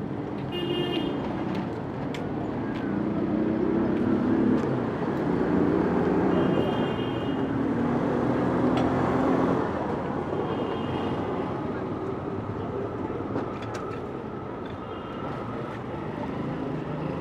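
City street ambience: steady traffic noise, with a vehicle passing that swells and fades over the first ten seconds, background voices, scattered clicks and a few short high-pitched chirps.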